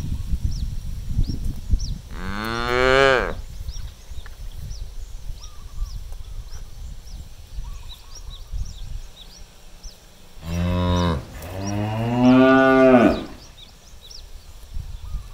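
Cow mooing three times: one call about two seconds in, then two calls close together near the end.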